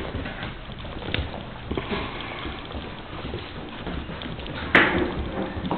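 Pit bull puppy scuffling and scrambling on a hardwood floor, irregular rubbing and light clicks, with a sudden louder scuffle near the end.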